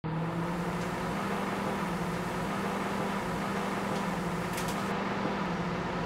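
Microwave oven running with a steady electric hum, with a couple of light clicks near the end.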